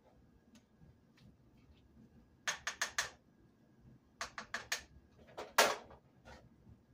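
Metal spoon clinking against a cooking pot and plate while food is dished up. There is a quick run of about four sharp clicks about two and a half seconds in, about five more a second later, and the loudest clatter near the end.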